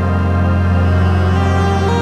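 Ambient background music: sustained synth tones over a steady low drone, with the chord shifting near the end.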